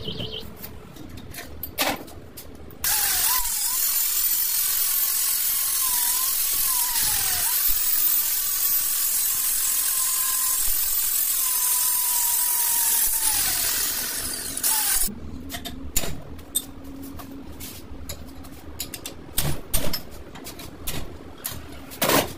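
Electric angle grinder running for about ten seconds, its whine sagging and recovering in pitch and then cutting off. Afterwards there are scattered sharp clinks and taps of metal tools.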